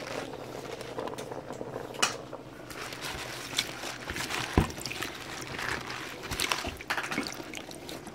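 Wet turnip and mustard greens being scooped by hand out of a plastic bowl of rinse water and dropped into a metal pot: irregular splashing and dripping water, with a few light knocks, the sharpest about four and a half seconds in.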